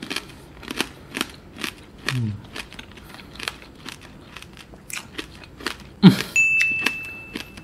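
Close-up chewing of a candied green grape (tanghulu): repeated crisp crunches of the hard sugar shell, a few each second. About six seconds in comes one loud sharp crack, followed by a thin high steady tone lasting over a second.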